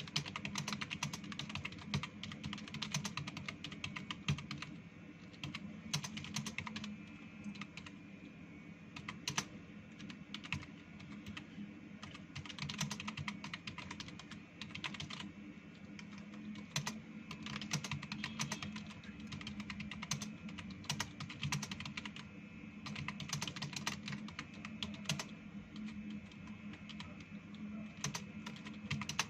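Fast, continuous typing on a computer keyboard, keys clicking in quick uneven runs at about 53 words a minute during a timed typing-speed test, over a steady low hum.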